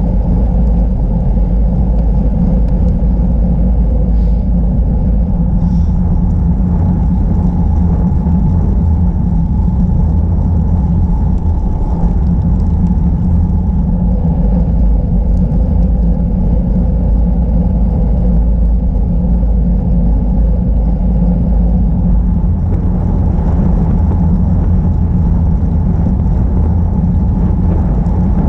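Wind rumbling steadily on the microphone of a camera carried on a moving bicycle.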